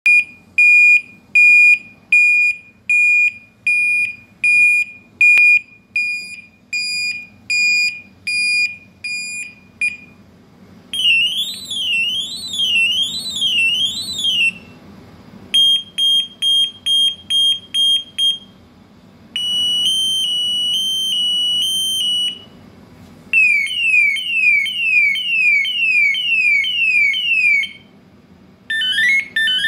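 Electronic siren sounder stepping through its tone patterns: a high beep repeating about one and a half times a second, then a rising-and-falling warble, rapid short pips, a slow two-tone alternation, repeated falling sweeps about twice a second, and near the end a fast two-tone warble, with a short gap at each change of pattern.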